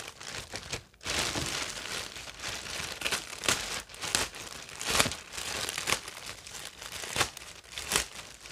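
Clear plastic bag crinkling and rustling as it is pulled open and off a small cardboard parcel by hand, with several sharp, loud crackles along the way.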